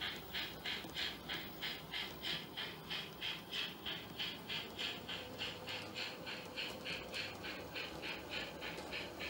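Steam chuffing from a Trix model of the Bavarian class B VI locomotive, a steady beat of about three and a half chuffs a second, fading a little near the end as the train draws away.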